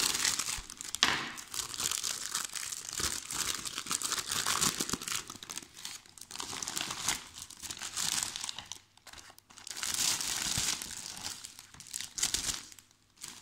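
Clear plastic packaging bag crinkling and tearing as it is cut open and pulled apart by hand. The rustling is irregular, with a couple of brief pauses.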